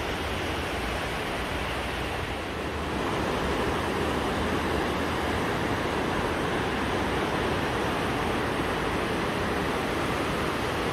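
A fast mountain river rushing over rocks, a steady rushing noise that gets a little louder about three seconds in.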